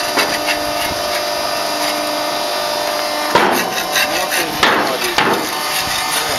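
Machinery of a plaster panel making plant running with a steady hum, and in the second half three loud knocks with some clatter.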